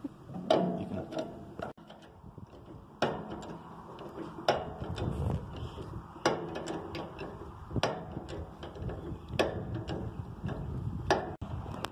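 Hand-operated hydraulic cab-tilt pump on a cab-over semi truck being worked with a long bar, jacking the cab forward: a sharp clack with each pump stroke, about every second and a half.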